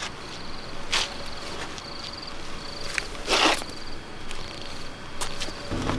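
Cricket chirping steadily, a short buzzing chirp a little more than once a second, with a few sudden rustling and scuffing noises, the loudest about halfway through.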